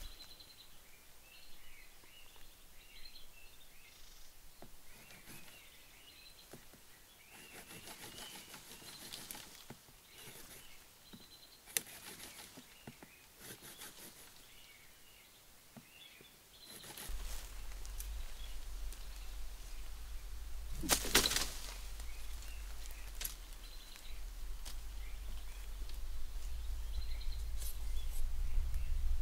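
Small birds chirping over the rustle and crackle of dry bamboo leaves and stems being handled. About two-thirds of the way in, a steady low rumble joins, and a loud crackle follows shortly after.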